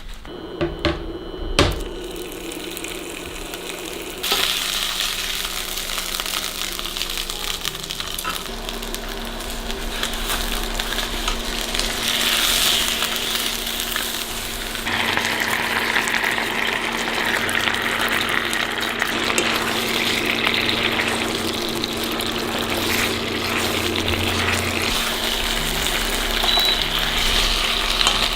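Chicken frying in a hot pan, a steady loud sizzle that gets louder about four seconds in. A few sharp knocks come in the first two seconds.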